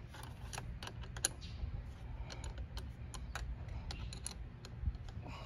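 Socket ratchet clicking in short runs of sharp metallic clicks, about one run a second, while a 10 mm bolt on the car battery's negative terminal is loosened.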